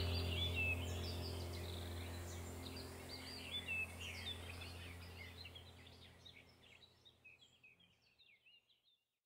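Background soundtrack of a low steady drone with bird chirps over it, fading out evenly to silence about six and a half seconds in.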